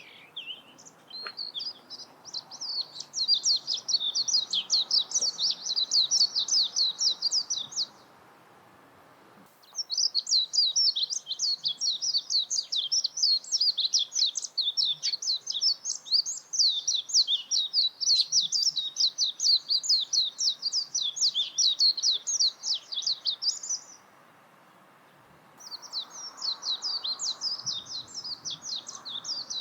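Warbling white-eye (Japanese white-eye) singing a fast, high-pitched twittering warble in three long runs, broken by short pauses about 8 and 24 seconds in.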